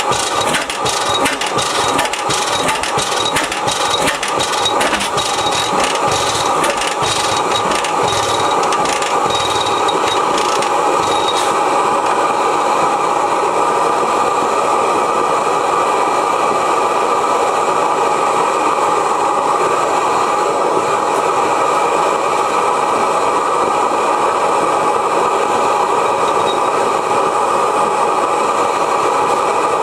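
1905 Reid hot-tube two-cycle oilfield engine turning over with irregular knocks that die away about twelve seconds in, leaving the steady hiss of the propane burner that heats its hot tube.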